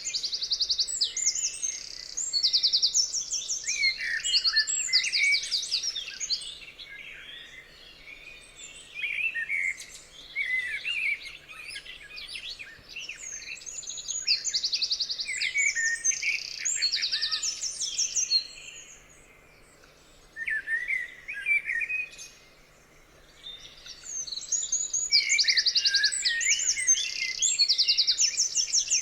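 Songbirds singing: overlapping chirps, fast high trills and warbled phrases, with short lulls about two-thirds of the way through.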